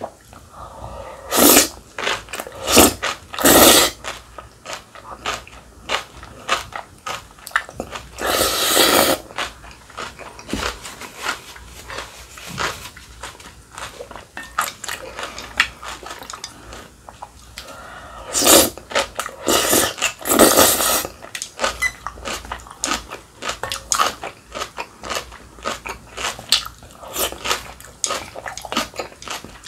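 Close-miked mouth sounds of eating spicy cold buckwheat noodles (kimchi bibim-naengmyeon): steady wet chewing with quick smacks, broken by several louder slurps of the noodles lasting about a second each.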